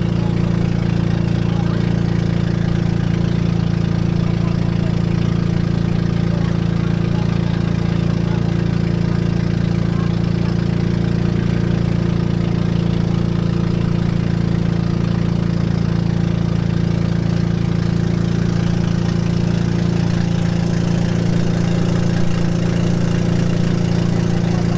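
A motorboat's engine running steadily while the boat cruises, a constant low drone.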